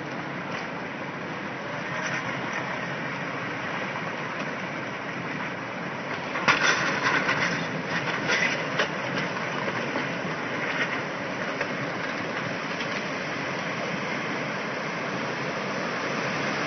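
Tsunami flood water rushing across flat farmland with floating debris: a steady rushing noise, with a stretch of louder cracks and crunches from about six and a half to nine seconds in.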